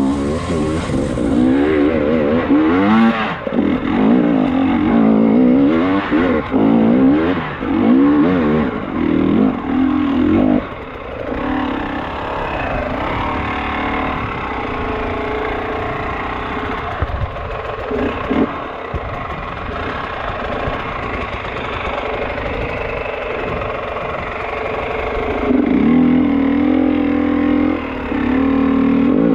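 Enduro motorcycle engine working up a rough climb. Its revs rise and fall over and over for about the first ten seconds, then it runs steadier and lower, and picks up again to a strong steady note near the end.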